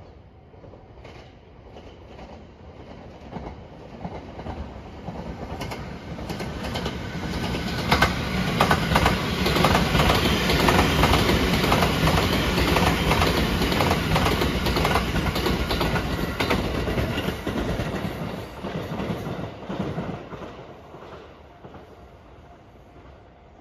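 JR 285 series Sunrise Seto electric sleeper train passing: the noise builds, then the wheels clatter over the rail joints in a long run of sharp clicks, and it fades away as the train leaves.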